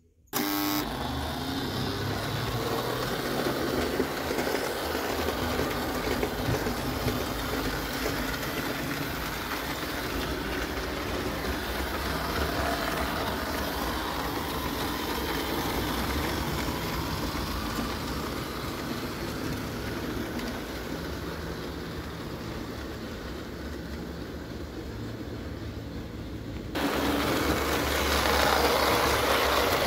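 JEP O gauge tinplate electric locomotive running on its track: a steady whir and clatter of motor and wheels that starts abruptly just after the start. About 27 seconds in it gets suddenly louder.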